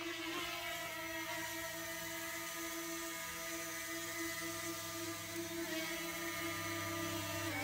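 Propellers of a DJI Mini 2 quadcopter drone giving a steady, even whine, its pitch dipping slightly near the end.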